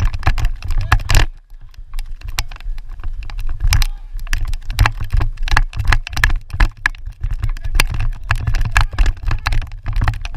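Wind rumbling on the microphone, with many quick, irregular clicks and knocks.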